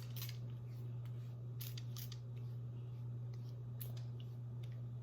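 Scissors snipping hair in a few short, crisp cuts, spaced irregularly, over a steady low hum.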